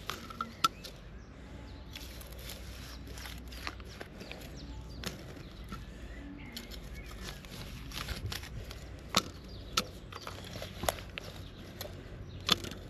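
Irregular crunches and sharp clicks of dry, clumpy garden soil as a hand bulb planter is pushed in to make planting holes; the strongest clicks come in the second half.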